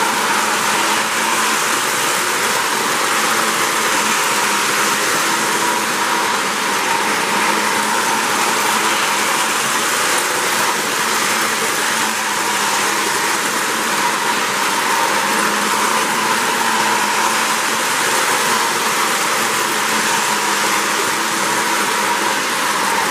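Lionel O-gauge model freight train rolling past close by on three-rail track: a loud, steady rolling of metal wheels on the rails, with the clickety clack of the cars running over the track.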